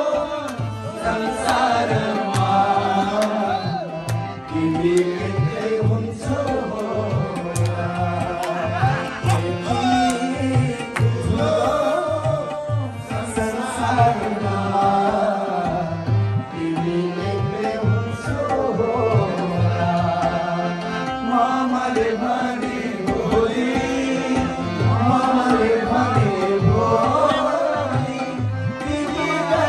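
A man singing live into a microphone over a harmonium, with a hand drum keeping a steady beat.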